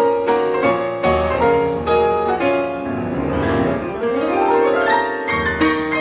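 Piano music: a flowing run of quick notes, with a passage that falls and then climbs back up near the middle.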